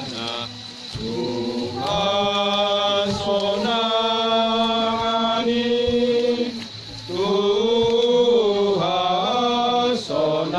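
Mourners singing a slow hymn together, long held notes in phrases, with short breaks about a second in and near seven seconds.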